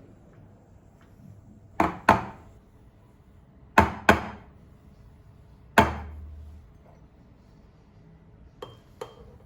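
Sharp knocks of hard objects on a hard surface: two pairs of knocks, each pair about a third of a second apart, then a single heavier knock with a short dull thud. Near the end come two lighter clinks with a brief ringing tone.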